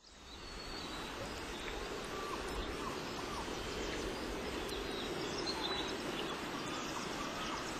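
Faint outdoor ambience: a steady low hiss with scattered soft chirps and short gliding calls.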